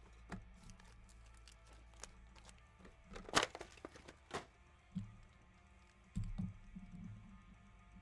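Scattered light clicks and knocks of a trading-card box and foil card packs being handled and set down on a table, the sharpest a little under halfway through, over faint background music.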